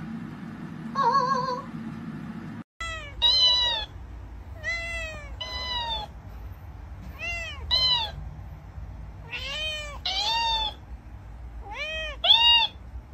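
A cockatiel gives one short wavering whistle about a second in. After that a cat meows about five times, each meow echoed straight back at a higher pitch by a dancing cactus mimic toy.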